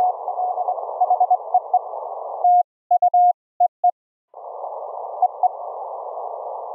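Morse code (CW) on the 40-metre band heard through a K3 transceiver's narrow CW filter: a keyed tone of about 700 Hz over band hiss. About two and a half seconds in, the hiss cuts out and a short clean burst of Morse in the same tone is sent, the transmit sidetone while the receiver is muted. The band hiss returns about a second and a half later with a couple of faint dits.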